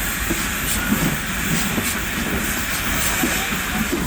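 Steam train pulled by the Arcade & Attica's 1920 2-8-0 locomotive No. 18 running, with a steady rumble and hiss and light irregular clicks.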